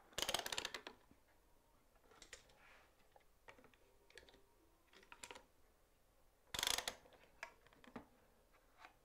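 Small ratcheting hand clamps being squeezed tight: a quick run of clicks just after the start and another about six and a half seconds in, with light handling knocks between.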